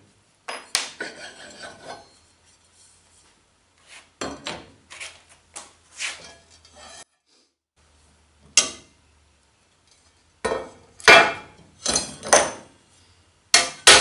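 Steel plate, drive shaft collar and keyed steel shaft being taken apart and set down on a plywood workbench: a string of metal clanks and scrapes, with the loudest knocks in the last few seconds.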